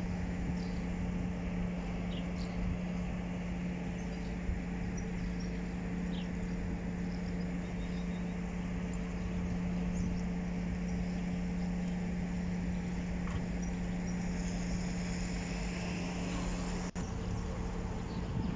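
A steady low machine hum that holds one pitch throughout, with a few faint bird chirps over it and a single sharp click near the end.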